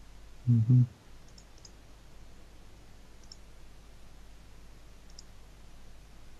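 Computer mouse clicking faintly a few times. About half a second in come two short, loud, low-pitched sounds close together.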